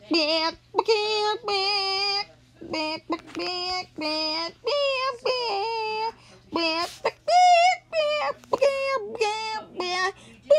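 A high-pitched cartoon character voice vocalizing in short, wordless, sing-song phrases, its pitch wavering and gliding, with brief gaps between phrases.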